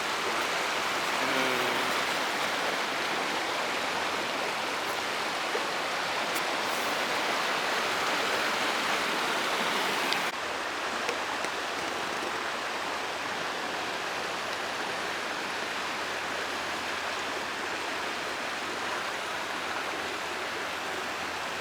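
Shallow creek water running over rock slabs, a steady rush that drops a little in level about halfway through.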